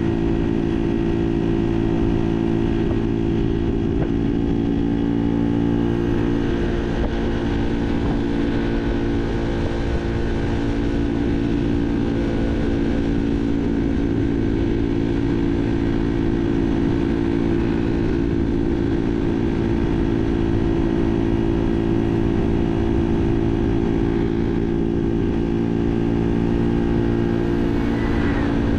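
Barton Volcano 50cc moped engine running at a steady, nearly constant speed under way, its pitch holding almost level, over a steady low rumble.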